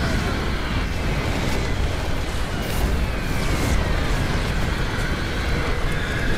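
Animated tank-battle sound effects: explosions and tank engines rumbling without a break, with a few sharp cracks.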